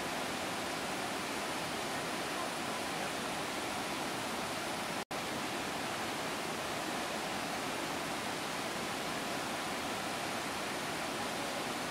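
Steady rushing of a large waterfall in monsoon flood, Athirappilly Falls, an even hiss of falling water. The sound drops out abruptly for a split second about five seconds in.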